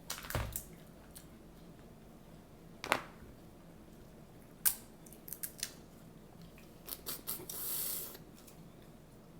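Eating sounds: sharp cracks and snaps of seafood shells being broken open, spaced a few seconds apart, with clusters of smaller clicks and a brief rustling hiss near the end.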